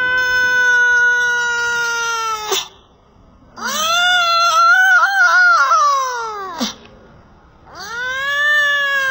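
A cat yowling in three long drawn-out calls. The first ends about two and a half seconds in, the second rises, wavers and falls in the middle, and the third begins near the end.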